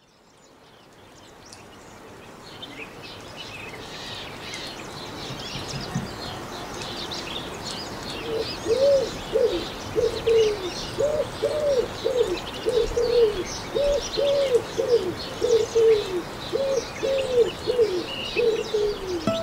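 Countryside birdsong fading in: small birds chirping throughout, joined about eight seconds in by a bird's low cooing calls, repeated in short phrases.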